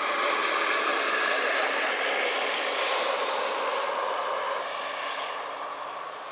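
Model gas-turbine engine running with a jet whine and rush. It is loud at first and fades away over the last couple of seconds.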